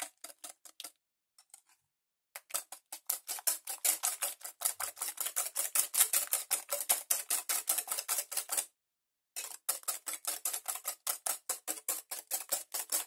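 Wire whisk beating a custard mixture in a glass bowl: a quick, even run of clicking strokes as the wires hit the glass, stopping briefly about one second in and again near nine seconds.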